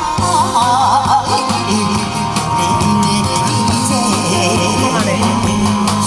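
A woman singing a Korean pumba song into a microphone through a PA speaker, over amplified backing music. Her voice wavers in the first second and holds one long note in the middle.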